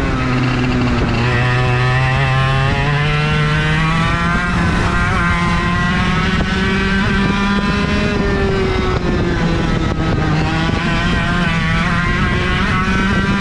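IAME KA100 100cc two-stroke kart engine at racing speed, picked up by the kart's onboard camera, its revs climbing and falling as the kart goes through the corners. The pitch dips briefly near the start and again around the middle, rising in between and near the end.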